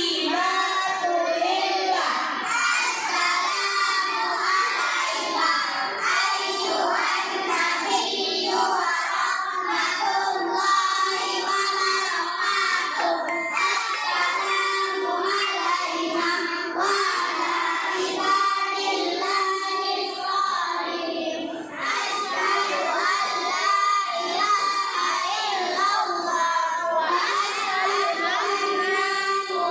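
A large group of children singing together, many voices at once at a steady level.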